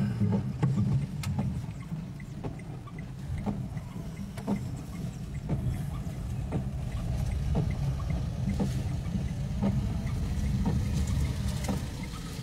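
Car engine running slowly, heard from inside the cabin, with rain on the car. A short tick sounds about once a second throughout.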